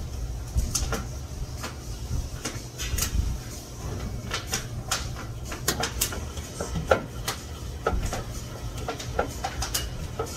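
Irregular clicks and knocks of kitchen things being handled and set down, over a steady low rumble.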